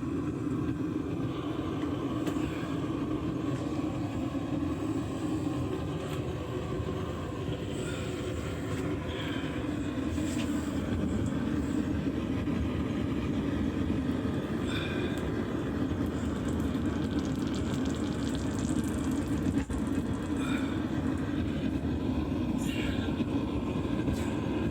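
A steady low rumbling roar, with a few faint brief higher sounds over it now and then.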